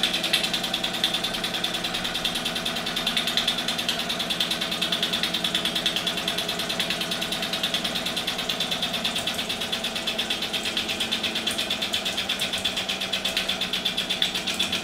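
1958 Mamod SE2 toy steam engine running steadily, its oscillating cylinder chuffing in a fast, even beat.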